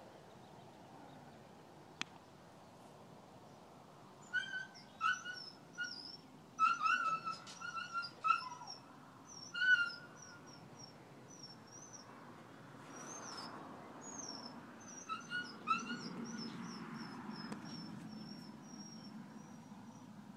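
A dog whining in a run of short, high-pitched yelps for about six seconds, then twice more briefly later. Small birds chirp throughout.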